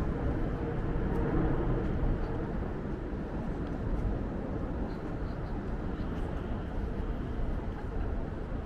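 Steady city street noise, mostly the low rumble of passing road traffic.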